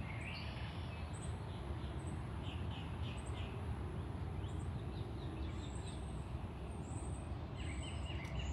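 Outdoor ambience: a steady low rumble with scattered short bird chirps, including a quick run of three or four about three seconds in and more near the end.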